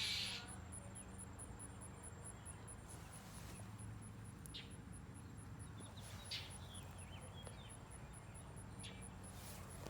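Faint outdoor ambience: an insect chirping steadily in high-pitched pulses about four times a second, with a few brief bird chirps and a low steady hum underneath.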